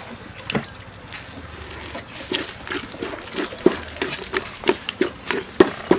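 Soft, rhythmic knocks, about three a second and starting about two seconds in, of millet TZ being shaped and smoothed in a bowl.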